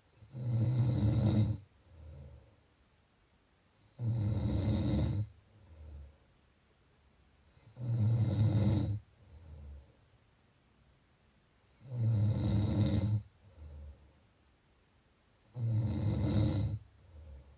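A person snoring in a steady rhythm: five loud, low, buzzing snores about four seconds apart, each lasting about a second, with a fainter breath after each one.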